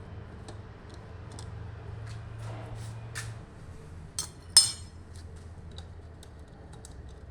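Light metallic clicks and clinks of a 10 mm T-spanner undoing the nuts that hold a motorcycle's air-filter cover, with one sharp ringing clink about four and a half seconds in, over a faint steady low hum.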